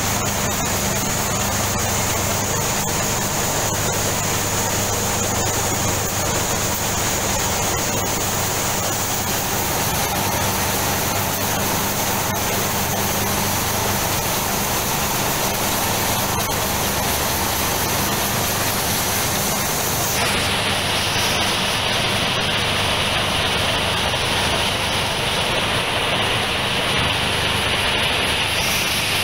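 Coffee gravity separator running: a steady rush of air and coffee beans shaking across its vibrating perforated deck, over a low motor hum. The tone of the hiss shifts about twenty seconds in.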